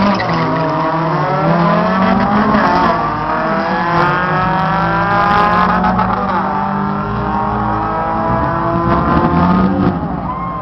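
Drag car's engine at full throttle, accelerating away down the strip, its pitch climbing and dropping back several times as it shifts through the gears, easing off near the end.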